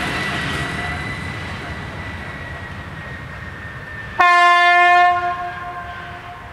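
A freight train running away into the distance, its rumble and a thin high wheel squeal fading, then about four seconds in a single loud blast of about a second from the diesel locomotive's horn, starting suddenly and dying away.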